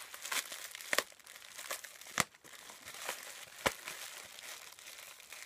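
Packaging crinkling and rustling as items are handled, with three sharp clicks or taps.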